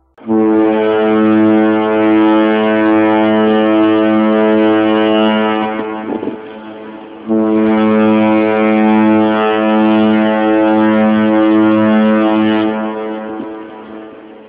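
A ferry's horn sounding two long, steady blasts of about six seconds each, with a short gap between them; the second blast tails off near the end.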